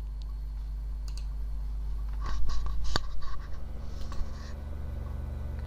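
Computer mouse clicks and handling scrapes on a desk over a steady low electrical hum, with a burst of clicks and scraping about two and a half to three seconds in, the sharpest click near three seconds.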